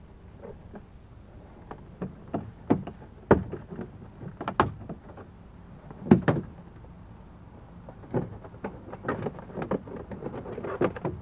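Plastic interior door trim panel of a Chevy Blazer being pulled off the door: a series of irregular sharp clicks and knocks as its retaining clips let go, the loudest about three and six seconds in, with a quick run of clicks near the end.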